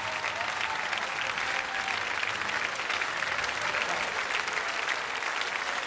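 Large audience applauding steadily at the close of a carnival speech.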